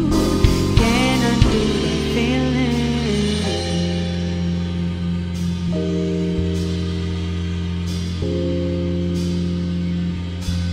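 Live neo-soul/electronic band playing: a wavering vocal line over drum hits for the first few seconds, then sustained keyboard chords over a held bass note, with a few cymbal strikes.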